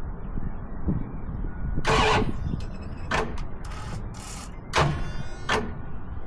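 1990 Dodge Ram 150's throttle-body fuel-injected engine being started: a steady low rumble broken by several short, loud, irregular bursts, the biggest about two seconds in. The truck has a no-start problem.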